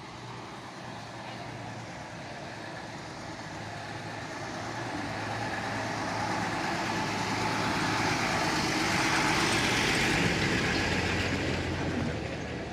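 A motor vehicle passing close by: a low engine hum under road noise that swells to a peak about nine seconds in, then fades.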